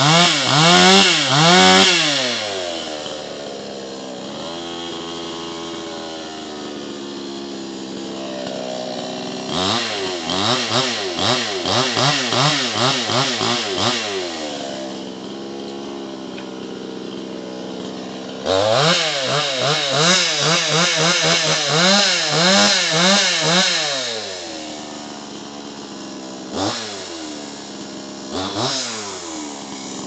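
Hoyoma gasoline chainsaw with a 22-inch bar idling, then revved hard in three long stretches of a few seconds each, its pitch wavering up and down, with two short throttle blips near the end.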